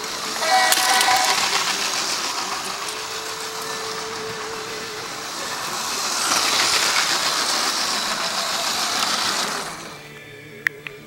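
Loud rushing, hissing train-crash noise lasting about nine seconds as a toy Lego train hits a car at a level crossing, with a brief horn-like chord near the start. It dies away near the end.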